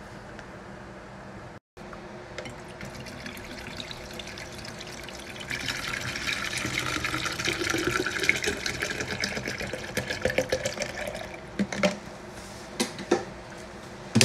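Water poured from plastic water bottles into a Tupperware cold brew pitcher, splashing steadily for about six seconds from midway, with a faint note rising under it as the pitcher fills. A few light knocks follow near the end.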